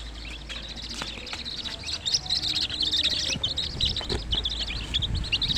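Many small birds chirping in quick, overlapping high-pitched notes, growing denser and louder about two seconds in.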